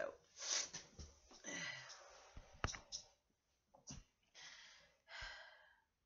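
A congested person breathing heavily: several noisy breaths in and out, with a couple of short sharp clicks in the middle. The breathing comes with a chest and sinus infection that she cannot cough up.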